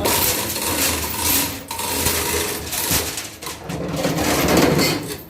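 Repaired cutting machine running on a test run, a steady mechanical hum under dense metallic clattering and knocking.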